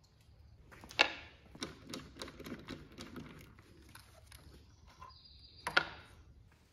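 Two sharp knocks, one about a second in and one near the end, with a run of lighter clicks and taps between them.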